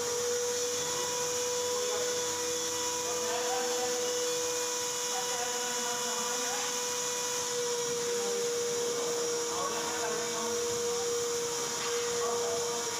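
A steady machine hum holding one pitch under a constant high hiss, with faint voices in the background.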